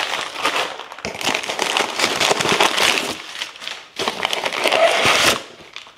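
Packaging crinkling and crackling as it is handled, with short breaks about one and four seconds in.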